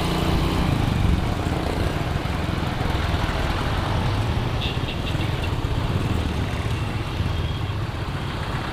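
Small Honda underbone motorcycle's single-cylinder four-stroke engine running at low, steady revs, heard from the rider's own bike.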